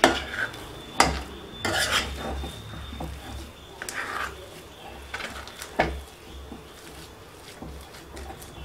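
A metal spoon stirring thick rava pongal in a small kadai, scraping through the food and knocking against the pan, with sharp clinks about a second in and again near six seconds.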